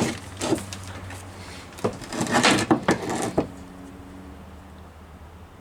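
A few knocks and scrapes of metal parts being handled, with a cluster of them a couple of seconds in, over a faint steady low hum.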